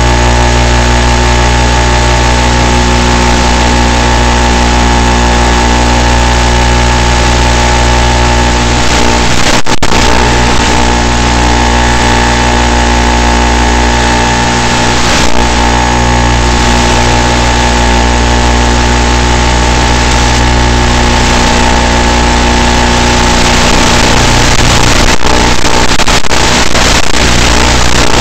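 Brushless motor and 7x4 propeller of a Skyhunter Nano FPV plane running steadily at cruise throttle, heard on board as a constant drone. The sound cuts out briefly about ten seconds in and several times near the end.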